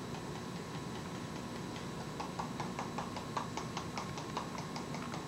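Pepper being dispensed over a sheet pan of cut vegetables: a quick run of light, even clicks, about five a second, starting about two seconds in, over a steady low hum.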